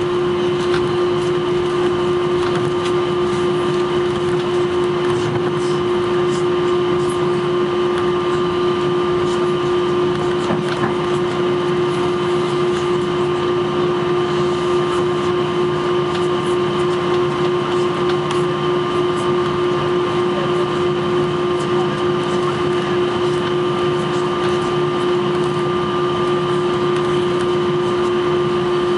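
Airbus A321 cabin noise while taxiing: the jet engines at idle give a steady hum with a steady whine on top, heard from inside the cabin over the wing.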